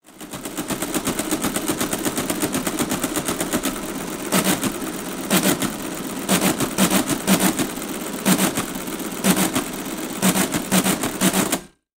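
Motor-driven mechanical desk calculator running through a calculation: a fast, steady clatter of its gears and carriage, with heavier clunks coming in irregular groups from about four seconds in. It stops abruptly just before the end.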